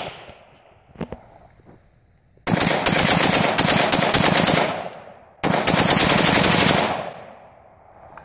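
Smith & Wesson M&P15 AR-15 rifle in 5.56 being bump fired: two long strings of rapid semi-automatic shots, the first about two and a half seconds long and the second about a second and a half, each dying away in echo. A single shot's echo fades at the start.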